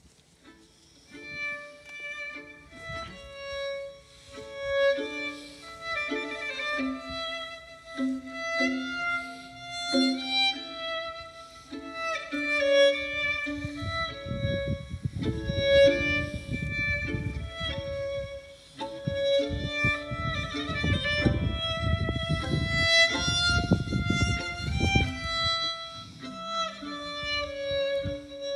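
Violins playing a slow melody of long held notes in several parts at once. From about halfway through, an irregular low rumble sits under the music.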